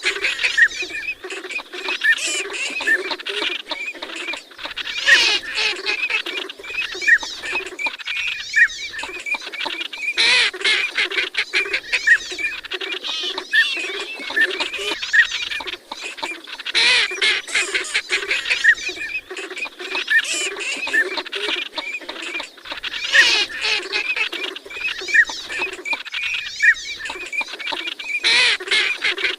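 Northern pintail and Eurasian teal calling together: rapid low quacking with many short high whistles over it. The same stretch of calls recurs about every six seconds.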